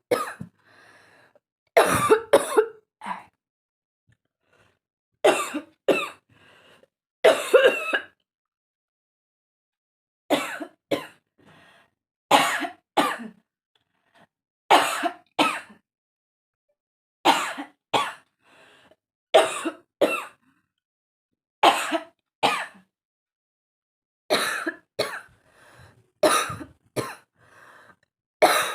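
Forced, deliberate coughing: short harsh coughs in bouts of two or three, a bout every two to three seconds, with a longer pause about eight seconds in.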